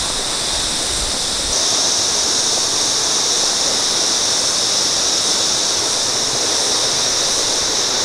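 Steady rushing of a rainforest creek running over rocks and small cascades, with a high, even hiss that grows stronger about a second and a half in.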